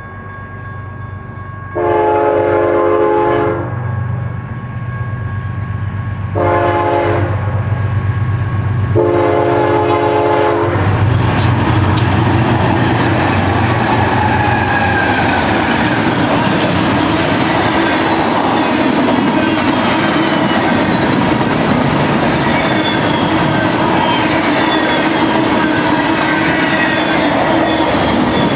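BNSF diesel locomotives sounding their air horn in three blasts (long, short, then long) over the low rumble of the engines, about two, six and nine seconds in. After that comes the steady rolling and clatter of a double-stack intermodal train's wheels on the rails as the cars pass.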